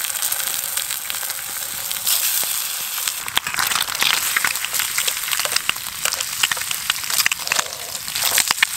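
Bacon frying, a steady sizzle full of small pops.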